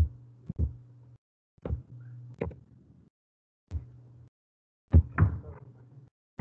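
A handful of irregular knocks and clicks over a low electrical hum, both picked up by an open microphone. The sound cuts in and out abruptly, as a call's noise gate opens and shuts.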